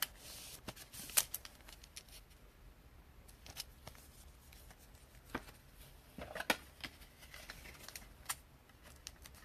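Thick trading cards being handled, giving scattered light clicks and taps as they are slid and set down, with a small cluster of clicks about six seconds in.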